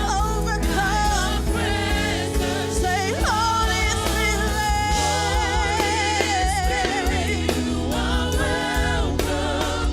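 Gospel worship music: singing voices holding long, wavering notes over a band with a steady bass.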